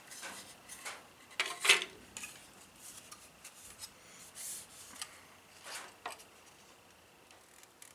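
Hard plastic model kit parts being handled, a few short clicks and clatters with some rubbing, the loudest about a second and a half in.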